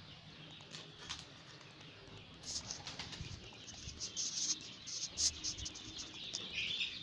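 A brood of 12-day-old joper (ayam kampung super) chicks peeping and chirping, sparse at first and getting busier from about two and a half seconds in.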